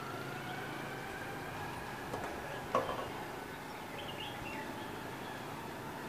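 City background hum with a faint engine tone slowly rising in pitch. A short sharp sound a little before halfway is the loudest moment, and a few brief high bird chirps come about four seconds in.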